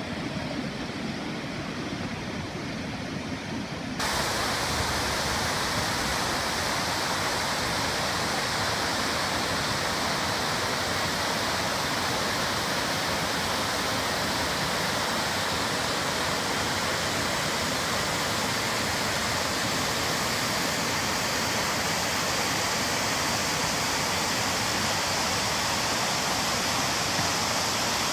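Waterfall rushing in a steady, even hiss. About four seconds in it suddenly gets louder and brighter, then holds steady.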